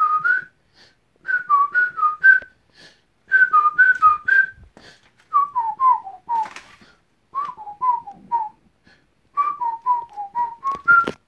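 A person whistling a tune in short phrases of four or five notes each, with brief pauses between phrases; the later phrases sit lower and fall in pitch.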